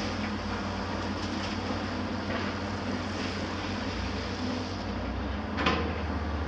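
Heavy excavator diesel engines running steadily, with a low hum and a constant rattle of machinery. A single sharp knock sounds about five and a half seconds in.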